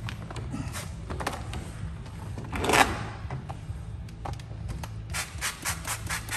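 Handling sounds from applying paint protection film by hand: a short hissing rub about midway, then a quick run of taps or ticks near the end, over a steady low hum.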